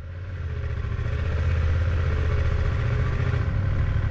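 Motorcycle engine running at low speed, heard from the bike's own windscreen mount, a steady low drone with road and wind noise. It grows louder over the first second and a half, then holds steady.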